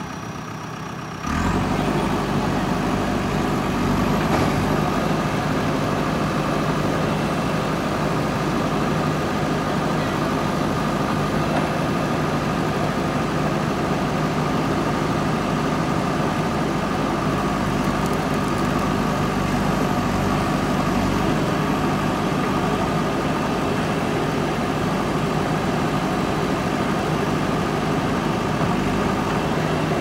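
JCB backhoe loader's diesel engine running steadily while its backhoe digs, with a steady high whine over the engine note. It is quieter for the first second or so, then jumps up in level and stays steady.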